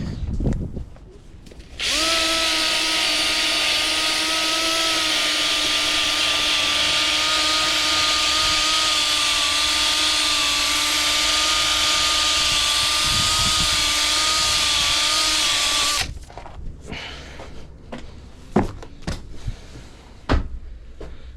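A handheld power tool running steadily at one speed for about fourteen seconds while the wheel hub is cleaned, starting about two seconds in and cutting off abruptly. A few light knocks of handling come before and after it.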